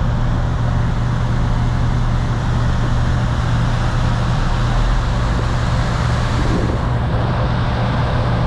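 Passenger ferry under way, its engines giving a steady low drone under a constant rushing noise.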